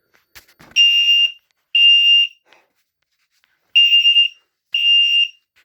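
Fire alarm horn sounding high-pitched half-second beeps about once a second, broken by a pause of about a second and a half: the temporal-three evacuation pattern, set off by a manually pulled pull station.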